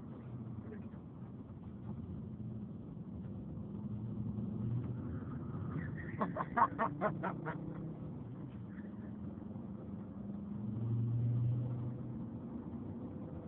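Volvo S60 R-Design's engine and road noise heard inside the cabin while driving uphill, the engine note swelling louder about three-quarters of the way through as it accelerates. About halfway, a quick run of about eight sharp pulses stands out above it.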